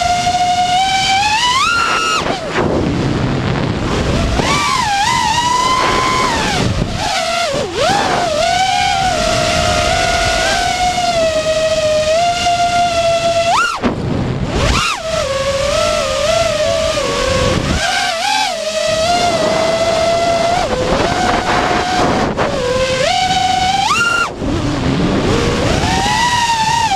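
FPV racing quadcopter's four T-Motor F60 Pro II 2700KV brushless motors and propellers whining. The pitch holds steady for stretches, then swoops sharply up and down several times as the throttle is punched and cut through flips and dives.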